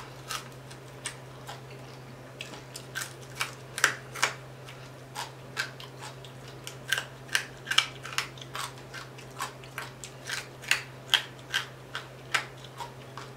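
Crispy fried tilapia crunching and crackling close to the microphone as it is bitten and picked apart: a steady run of short, sharp crunches, two or three a second. A low steady hum runs underneath.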